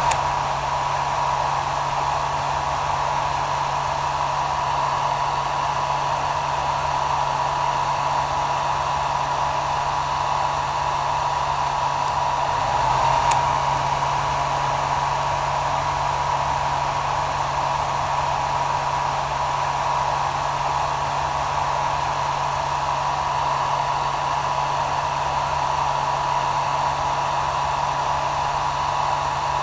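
Hair dryer running steadily: an even rush of blown air over a constant motor whine, without change in speed.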